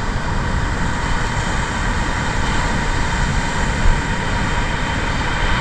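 Steady roar of breaking surf with wind rumbling on the microphone, with one brief small knock about four seconds in.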